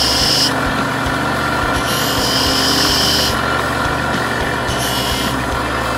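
Small benchtop lathe running steadily while a parting tool cuts an O-ring groove into a spinning acrylic duck call insert. The cut comes as a high hissing scrape in three spells: at the start, for about a second in the middle, and briefly near the end.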